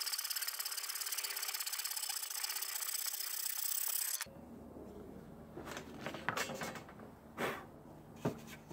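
Irwin handsaw cutting rapidly through a wooden block glued into a mis-cut mortise, sawing it off flush with the beam, in fast rasping strokes. The sawing stops abruptly about four seconds in, followed by light rubbing and a few sharp knocks as the wood is handled.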